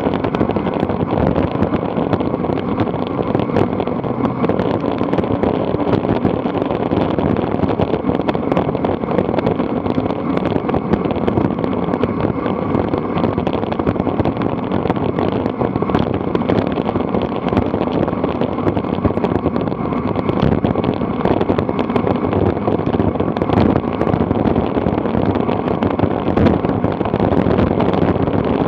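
Steady wind noise buffeting the microphone of a camera riding on a bicycle as it descends fast, with a fine crackle running through it.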